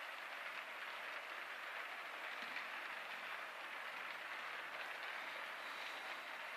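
Steady low hiss of background noise with no distinct event.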